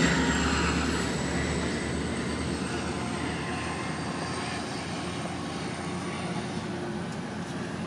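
Passenger train running along the tracks and pulling away, its rumble and rail noise fading steadily, with a thin high whine held over it.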